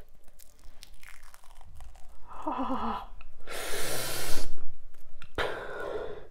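A dried glittery peel-off face mask being pulled off the skin in strips, with soft sticky tearing and crackling. A pained whimper comes a little past two seconds in, followed by a loud strained breath.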